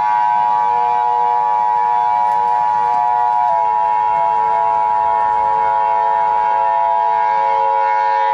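Emergency Alert System attention signal: a harsh, steady two-tone alert held unbroken, with lower steady tones underneath that step down in pitch about three and a half seconds in.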